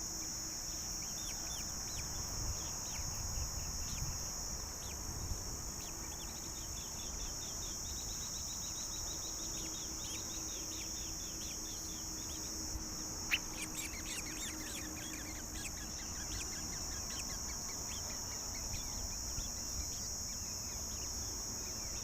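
Steady high-pitched insect drone, with two runs of rapid repeated bird chirps in the middle and a single sharp click just before the second run.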